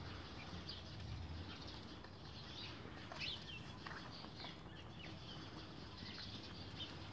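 Faint scattered chirps and short calls of small birds, several brief high notes every second or so, over a low outdoor background.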